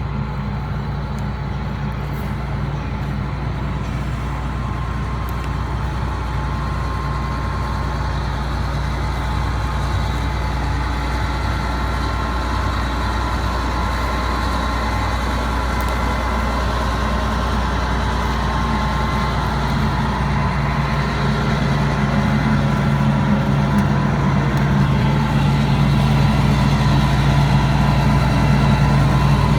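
Heavy diesel engine of harvest machinery running steadily, a low drone with a fainter whine above it, growing gradually louder.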